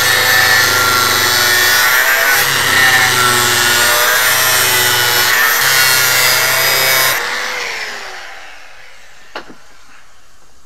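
Angle grinder with a cutting disc grinding into the aluminium can of a 3-farad car-audio capacitor, a loud whining grind. About seven seconds in the grinder is switched off and spins down with a falling whine, followed by a single light click.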